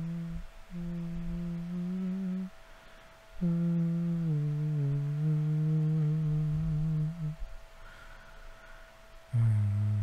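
A man humming a slow, low tune in long held notes that glide between pitches, breaking off twice for a pause.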